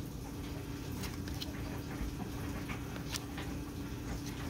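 Topps 2021 Series 1 baseball cards being flipped through by hand: light, scattered clicks and slides of card against card, over a steady low hum.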